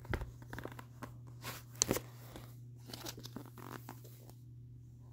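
Paper rustling and handling noises as a paperback graphic novel's page is turned, with a sharp click near two seconds in, then softer rustles over a steady low hum.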